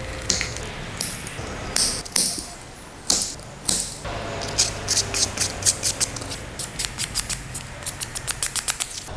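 Hand sanding of a wooden sword handle with sandpaper: scratchy rubbing strokes, a few slow ones at first, then quicker short strokes at about four or five a second through the second half.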